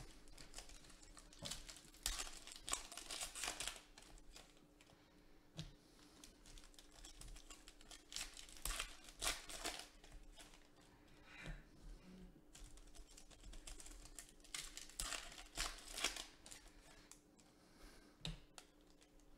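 Foil trading-card pack wrappers crinkling and tearing as packs are ripped open, in three spells of a second or two, with soft clicks from the cards being handled.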